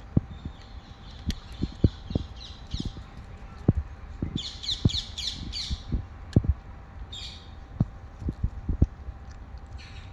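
A bird calling in quick runs of high, rapid chirping notes, four bouts in all, over scattered soft low knocks.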